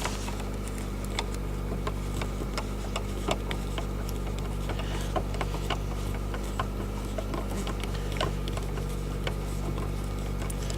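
Scattered small clicks and ticks of a Phillips screwdriver working the screw out of a car's inside door handle, over the steady hum of the car running with its heater blower on.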